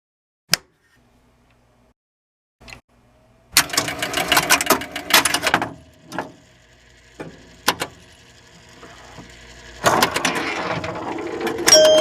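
Electromechanical pinball machine clattering: rapid clicks of relays, stepper units and score reels. The clicking comes in a dense run, then a few single clicks, then picks up again near the end.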